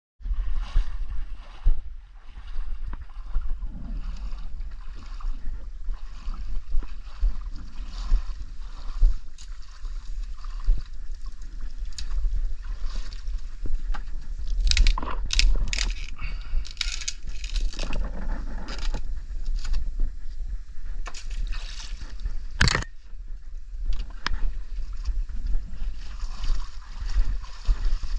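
Wind buffeting the microphone with a constant low rumble, broken by scattered knocks and clatter, the loudest a single sharp knock a little over 22 seconds in.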